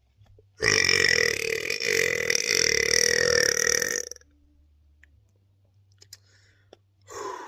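A man's single long, loud burp, lasting about three and a half seconds and cutting off abruptly.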